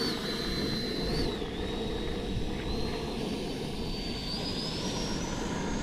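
FMS Viper 70 mm electric ducted-fan jet on its takeoff roll. The fan whines, dipping briefly about a second in, then rising steadily in pitch as the throttle comes up, over a steady rushing noise.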